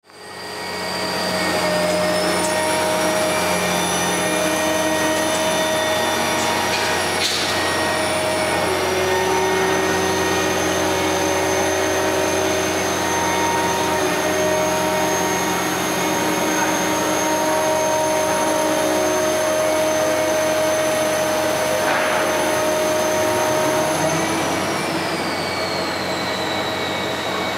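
Kirow railway crane's power unit and machinery running steadily as the crane works, a hum with several held tones and a high whine that rises in pitch about a second in and falls away near the end. The sound fades in at the start.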